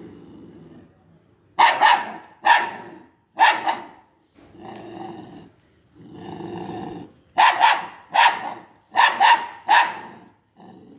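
Two-month-old Italian greyhound puppy barking at a stranger: a few sharp barks early on, then a quicker run of four barks near the end, with low growls in the gaps between.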